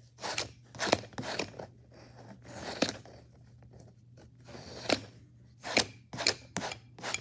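Palette knife scraping and spreading thick paint across a canvas: about ten short, irregular rasping strokes.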